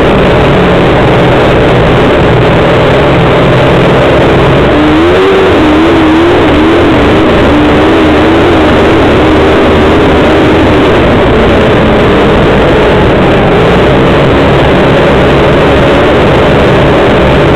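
Engine of a small off-road vehicle running steadily under way on a snowy trail, recorded so loud that it is overloaded. From about five seconds in, a higher tone warbles up and down for about five seconds.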